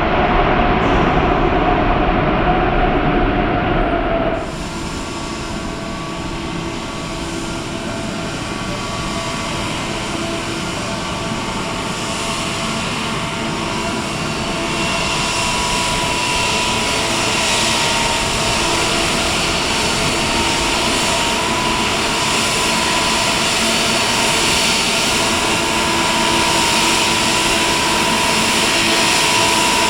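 Jet engines of a Boeing 777-200ER airliner running with a steady whine. About four seconds in the sound drops abruptly, then slowly grows louder again.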